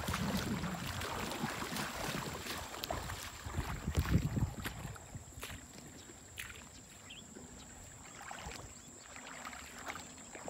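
Flowing river water with a low, uneven rumble of wind on the microphone, louder for the first few seconds and then quieter, with scattered light clicks.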